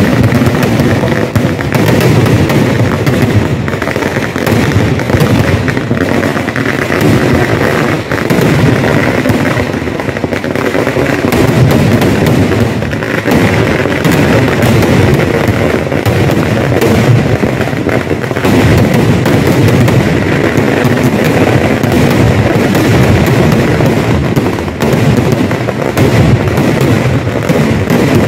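Fireworks barrage: aerial shells bursting in a dense, unbroken run of loud bangs and crackling.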